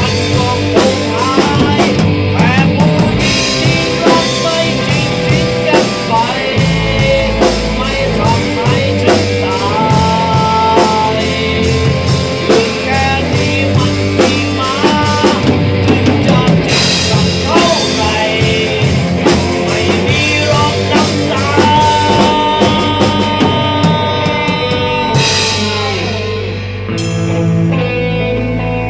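A rock band playing live: a drum kit and guitar, with a man singing into a microphone and holding a few long notes.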